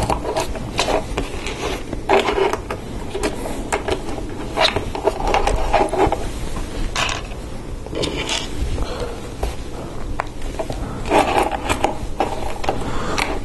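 Plastic LEGO Technic parts clicking as pins, axles and bushings are pressed into beams by hand: irregular short clicks and snaps.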